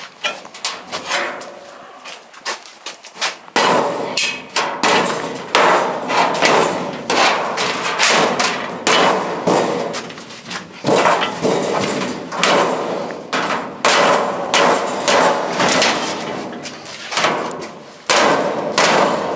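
Hammer blows on the sheet-metal casing of an old furnace being torn apart for scrap: sharp, ringing strikes, about one or two a second, beginning a few seconds in after a quieter start.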